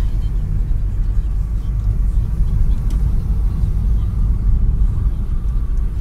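Steady low rumble of a car driving along a road, heard from inside the cabin.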